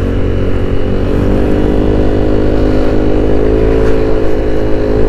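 Yamaha NMAX scooter's single-cylinder engine running at a steady cruise. Its pitch sags slightly midway and rises again near the end. It is heard through a helmet-mounted mic, with low wind rumble underneath.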